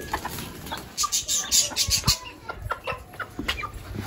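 Chickens clucking softly while they feed, with a run of short sharp ticks about a second in.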